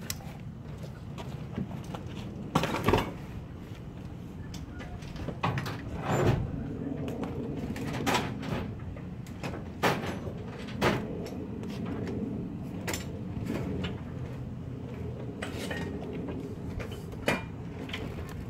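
Scattered knocks and crinkling rustles of brown paper weed barrier being handled and laid out, over a steady low hum.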